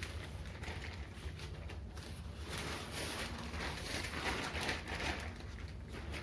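Rustling and handling of a keyboard's delivery packaging in irregular bursts, over a low steady hum.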